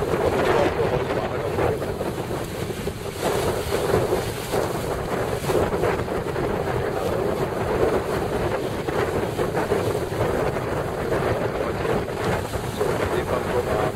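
Strong wind buffeting the microphone over choppy sea water, a steady fluttering rush with waves lapping beneath it.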